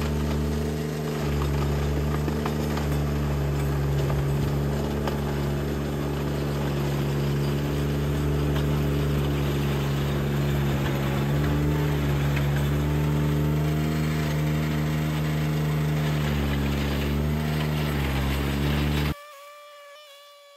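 Ventrac 4500Z tractor's engine running steadily under load, with a rough scraping hiss over it as its front toothed rotor attachment grinds into the gravel drive. The sound cuts off suddenly near the end.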